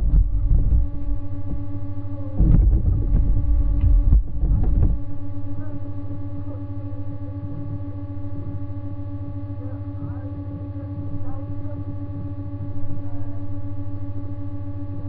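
A steady electrical hum with a fixed pitch. It carries low bumps and knocks during the first five seconds or so, then goes on alone.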